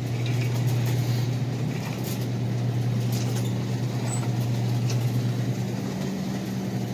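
A steady low mechanical hum over a bed of even noise, with a few faint ticks.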